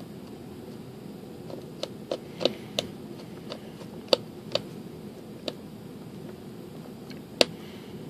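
A small screwdriver driving screws into a servo mount: a scattered run of light clicks and ticks as the tip works in the screw heads, over faint steady room noise.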